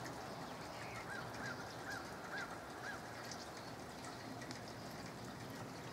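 Steady hiss of light misty rain, with a bird giving five short, clear calls in quick succession, about two a second, starting about a second in.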